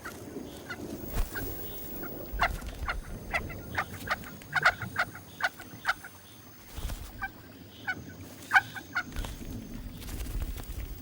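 Picathartes chicks begging in the nest: a long series of short, sharp calls, some single and some in quick clusters, over a low rumbling background.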